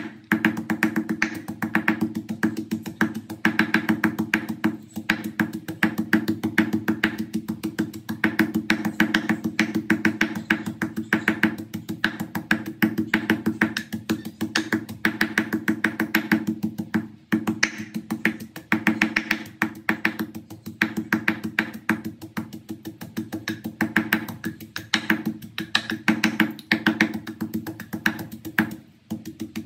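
Wooden pestle pounding rapidly and repeatedly in a wooden mortar, crushing a spice paste, a steady run of hollow wooden knocks. Background music plays throughout.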